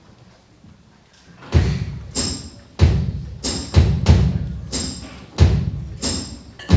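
A live band starts a song about a second and a half in, with a drum kit's bass drum and cymbal hits setting a steady beat.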